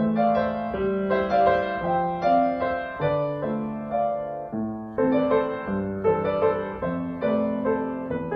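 Background music: a gentle piano melody over sustained low notes.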